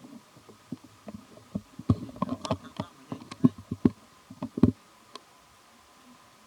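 A run of irregular sharp clicks and knocks for about five seconds, over a steady high buzzing hum.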